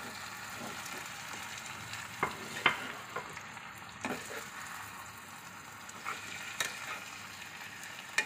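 Chopped tomatoes sizzling in hot oil in a nonstick pan as a spatula stirs them, scraping and knocking against the pan several times.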